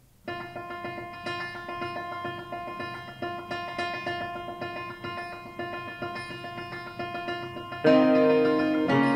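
Jazz-fusion piano music played through a KRK Rokit 5 G3 (RP5 G3) studio monitor, recorded in the room. It starts after a moment of silence with repeated piano chords. About eight seconds in, bass and the rest of the band come in louder.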